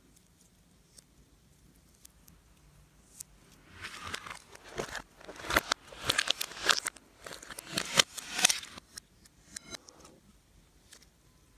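Slime being squeezed and worked by hand, giving several bursts of wet crackling and popping about four to nine seconds in.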